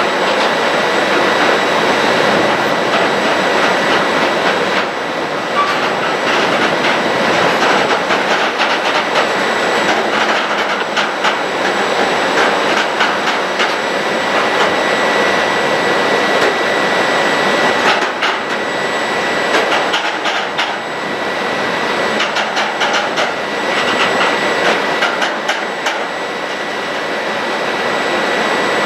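Train running past on the rails: a steady loud rush of wheels on track with a steady high whine over it, and several spells of rapid clicking from the wheels.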